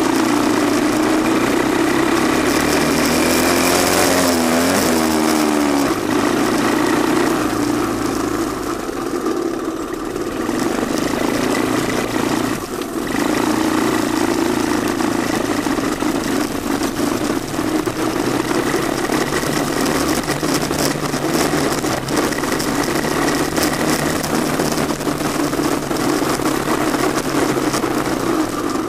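Honda ATC185S three-wheeler's single-cylinder four-stroke engine running as it rides along, the engine note rising and falling a few seconds in and dipping briefly about halfway through.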